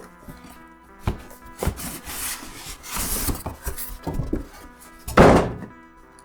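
Cardboard shipping box being opened and handled under background music: a few dull thunks and rustling, then a louder rasping noise about five seconds in.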